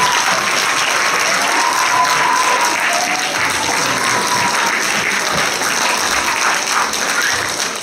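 A congregation applauding steadily, fading out at the very end.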